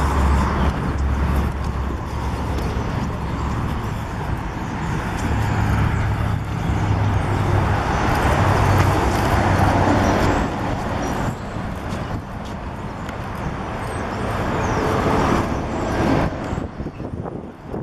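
Road traffic noise: a steady rush of passing motor vehicles with a low engine hum that rises and falls.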